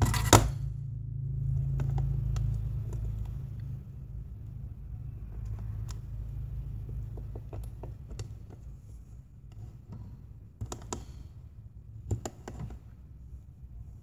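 Scattered light clicks and taps of a part being handled and pushed into a handheld component tester's socket, over a low steady hum that is loudest for the first few seconds.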